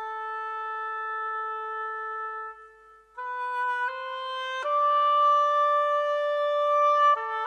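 Instrumental music: a slow melody of long held notes on a sustained, wind-like tone. The first note fades away about two and a half seconds in, and after a brief gap the line comes back and steps up through several notes to a longer, louder held note.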